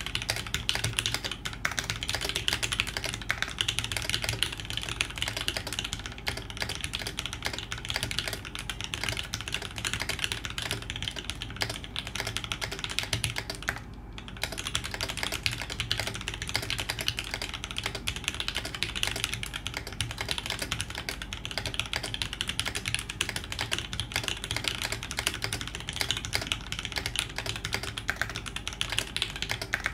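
Fast, continuous typing on a polycarbonate TGR Alice mechanical keyboard at about 116 words a minute. It has lubed C3 Tangerine linear switches with 60 g springs on a copper plate, GMK keycaps, and a Holy Panda spacebar. The key clatter breaks off briefly about a third of the way in.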